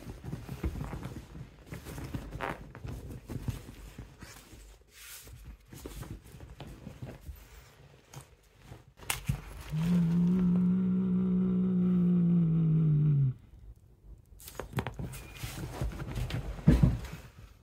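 British Shorthair cat giving one long low growl, about three and a half seconds, near the middle: a possessive growl over a toy it likes. Around it, rustling and knocks of handling and movement.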